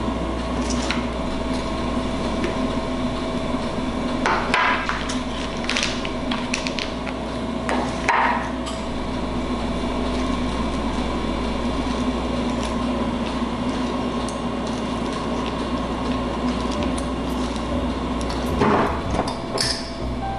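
Table knife and utensils knocking against a ceramic plate and wooden board while cream cheese is spread on a croissant waffle: a few separate short knocks, two close together near the end, over a steady low hum.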